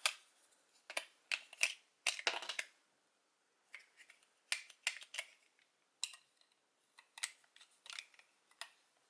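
Plastic toy parts clicking and tapping as they are handled and fitted, in irregular sharp clicks with a quick cluster about two seconds in.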